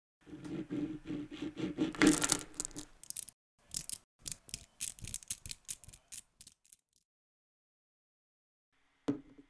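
Tiny Neoballs neodymium magnet spheres clicking and rattling against each other. A dense clatter for the first few seconds gives way to a run of separate sharp clicks that thin out, with one more click near the end.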